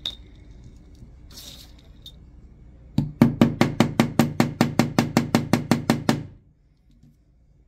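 A small hammer tapping a pin into a Glock pistol frame: a fast, even run of about eighteen light taps, roughly five a second, lasting about three seconds and starting about three seconds in. A faint click comes just before.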